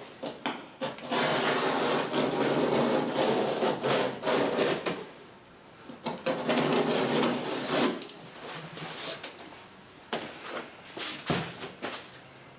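Cardboard of a large shipping box being cut with a knife: two long stretches of rasping, sawing strokes, then lighter scrapes and a few knocks near the end.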